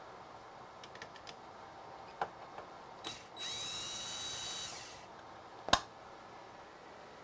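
A DeWalt cordless drill/driver runs for about a second and a half, spinning up to a steady whine and then winding down, as it backs out a screw holding the scroll saw arm's plastic cover. Light handling clicks come before it, and a sharp knock, the loudest sound, follows about a second after it stops.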